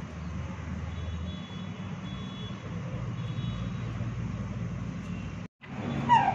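Steady low background rumble, then, just after the sound cuts out briefly near the end, a short loud falling-pitch squawk from a chicken.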